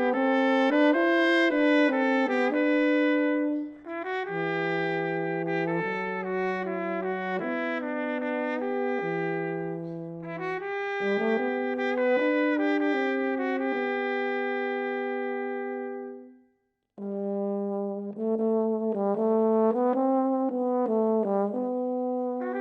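Trumpet and euphonium playing a slow duet, the trumpet carrying the melody over a lower euphonium line that comes and goes. The playing cuts off for about half a second roughly three-quarters of the way through, then resumes.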